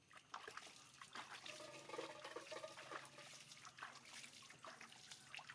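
Bath water splashing and trickling in quick, irregular small splashes and drips as a baby monkey is washed.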